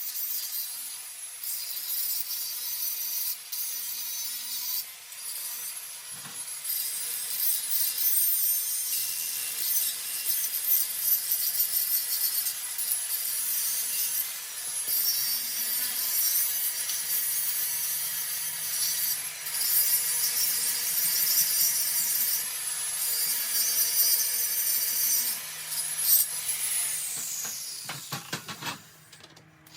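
Large electric angle grinder grinding old weld off a steel log-splitter wedge, a harsh high-pitched grinding hiss with brief breaks as the disc is lifted and set back on the metal. Near the end the grinder winds down with a falling whine.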